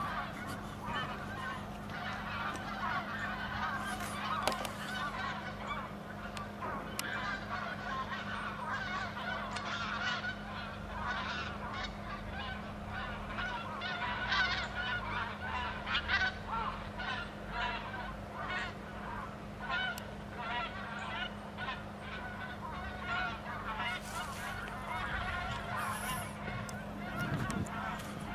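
A flock of geese calling, many short honks overlapping without a break, over a steady low hum.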